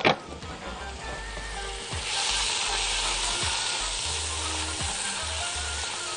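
Onion and mushrooms sautéing in butter and oil in a large pot, sizzling while being stirred with a silicone spatula; the sizzle grows louder about two seconds in. A sharp knock right at the start.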